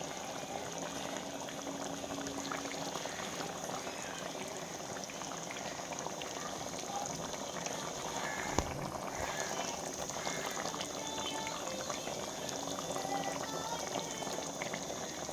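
A pot of Kerala-style chicken curry cooking on the heat: a steady bubbling, crackling hiss with many small pops, and a single knock about eight and a half seconds in.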